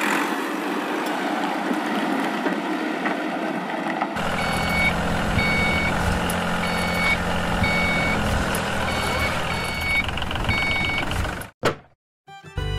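A motor whirring for about the first four seconds, then a vehicle reversing alarm beeping about once a second, around seven beeps, over a low engine rumble. It cuts off suddenly near the end.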